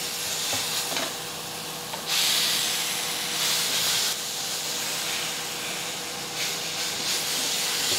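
Tempering sizzling with a steady hiss in a hot cast-iron kadai, louder from about two seconds in. A faint steady hum runs underneath.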